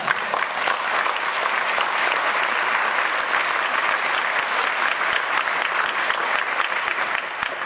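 Audience applauding: many hands clapping in a dense, steady wash that breaks out suddenly and begins to die down near the end.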